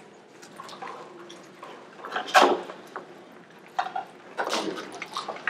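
A quiet congregation during communion: scattered light clicks and taps, like small cups and trays being handled, with two louder, brief noises about two and a half and four and a half seconds in.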